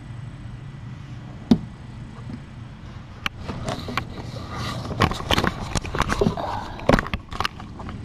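A black kitten nosing and rubbing against the live-stream camera and its microphone, making close, irregular bumps, scrapes and rustles from about three seconds in. Before that comes a single sharp tap about a second and a half in. A steady low hum runs underneath.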